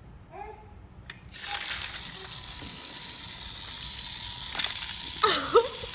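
Motorised Mega Bloks Thomas toy train running on plastic track: its small electric motor gives a steady high whir that starts about a second and a half in.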